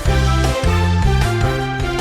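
Upbeat cartoon soundtrack music with a steady bass line changing notes about every half second under held melody notes.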